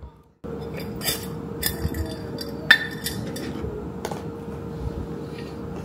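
IKEA clip-top glass jar being handled: a few sharp glass clinks and clicks as its wire-clasp glass lid is worked, the loudest about two and a half seconds in.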